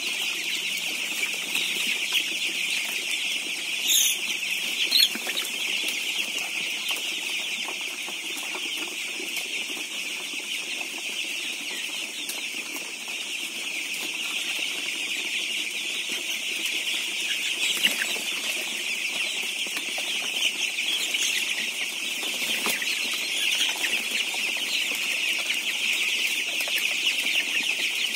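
Dense, continuous peeping chorus of a large flock of 15-day-old broiler chicks, thousands of high calls blending into one unbroken din. A couple of sharper, louder sounds stand out about four and five seconds in.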